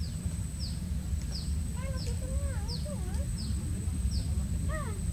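A bird repeats a short, high, falling chirp about every 0.7 seconds over a steady high-pitched whine and a low rumble. A few lower, wavering calls come around the middle and again near the end.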